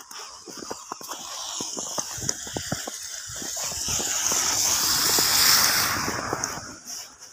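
A car driving past on a slushy, snow-covered road: tyre hiss and slush spray swell over about four seconds and fade near the end. Footsteps crunching in snow tick along underneath.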